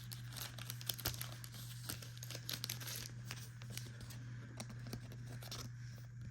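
Soft plastic card sleeve crinkling and rustling as it is pulled out and a trading card is slid into it: a run of small crackles that thins out near the end, over a steady low hum.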